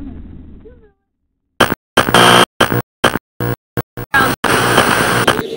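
Electronic glitch-edit audio: after the earlier sound fades out and a short silence, loud noisy sound with a pitched edge is chopped hard on and off in about eight stuttering bursts, then runs on unbroken for about a second before cutting to something else near the end.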